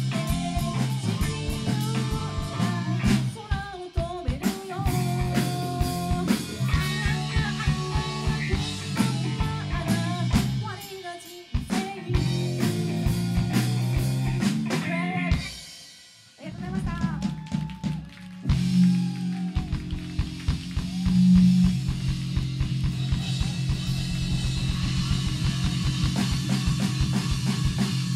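Rock band playing live: a female vocalist singing over drum kit, electric bass and electric guitar. The music almost stops for a moment about sixteen seconds in, then the full band comes back in with a steady drum beat.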